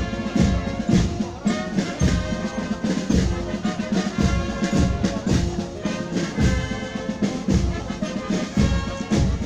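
Military brass band playing, with held brass chords over a regular bass drum beat.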